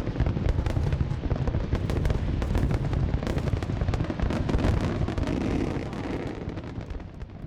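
Large fireworks display: a dense run of bangs and crackles over a deep rumble, dying away near the end.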